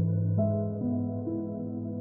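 Background music: slow ambient, new-age style music of sustained notes that change every half second or so.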